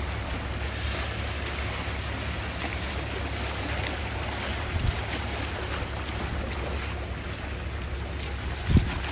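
Sea waves washing steadily, with wind rumbling on the microphone and two brief low gusts hitting it, about halfway through and near the end.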